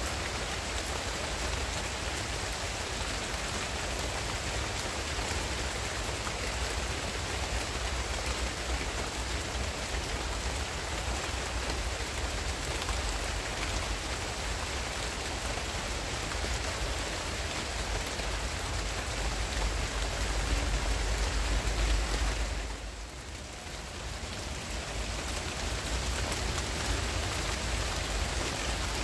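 Steady rain falling on palm fronds and garden foliage: an even hiss with a low rumble underneath. It swells briefly and then drops for a moment about three-quarters of the way through.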